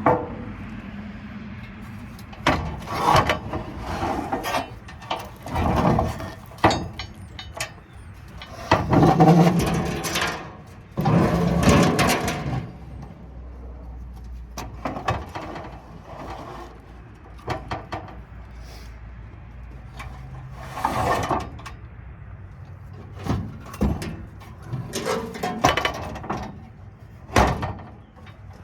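Irregular knocks, clanks and scraping of heavy metal scrap parts being handled, moved and set down, with a couple of longer scraping stretches near the middle.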